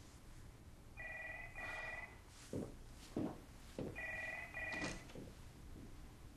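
A telephone ringing in a double-ring pattern, two short rings close together, heard twice about three seconds apart. Between the rings come three short dull thumps.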